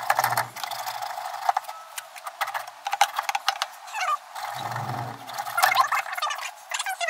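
Irregular clicks, knocks and rattles of hands working on PVC pool-filter plumbing fittings at the base of a DE filter, loosening them to take the filter out.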